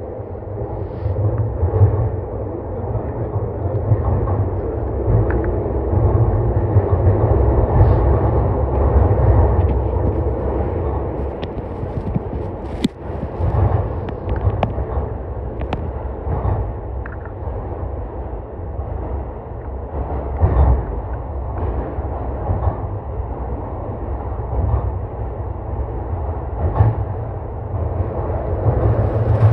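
Sotetsu 21000 series electric train running through a subway tunnel: a steady low rumble of wheels on rail with scattered clicks and knocks, including one sharp knock about thirteen seconds in.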